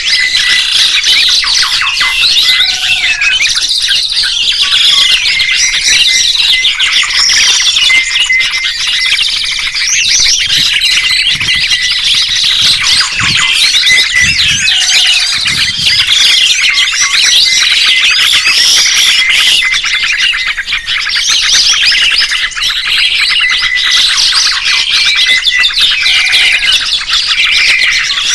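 Songbirds chirping and twittering, many calls overlapping in a dense, continuous chorus of short high chirps and whistles.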